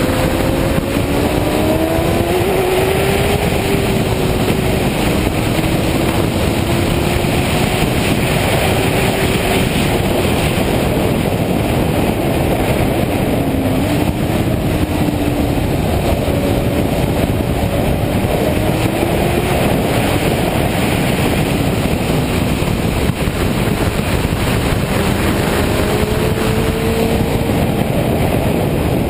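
Suzuki GSX-R inline-four sport bike heard from onboard at speed, with the engine note rising and falling several times as the throttle opens and closes through corners, under a heavy rush of wind.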